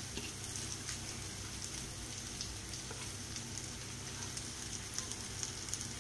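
Ghee and oil frying in a kadai with ginger, garlic, green chilli and mashed potato: a steady low sizzle with a few small crackles.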